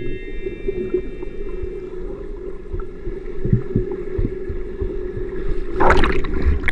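Muffled underwater sound from a camera held under the sea: a steady low hum and rumble of moving water, with a louder rush of splashing and bubbles from a swimmer's arm stroke near the end.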